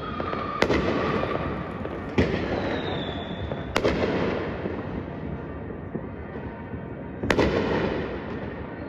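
Aerial fireworks bursting: four sharp bangs, the first three about a second and a half apart and the last about seven seconds in, over a continuous noisy wash of the display. A thin falling whistle is heard about three seconds in.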